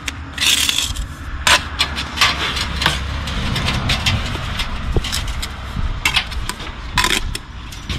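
Steel brick trowel scraping and tapping on mortar and brick while a thin mortar bed is spread to seat a lintel: a run of scrapes and sharp clicks of the blade, over a steady low rumble.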